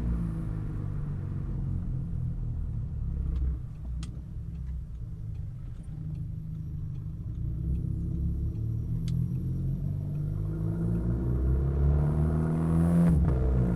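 Audi A3 2.0 TFSI turbocharged four-cylinder through an aftermarket downpipe and cat-back exhaust. It drops to a low rumble as the throttle is lifted, then builds steadily under load. A brief cut about a second before the end marks a gear change, and the exhaust picks up loud again.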